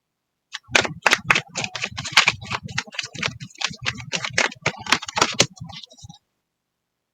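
A deck of oracle cards being shuffled by hand, a quick irregular run of card taps and flicks lasting about five seconds.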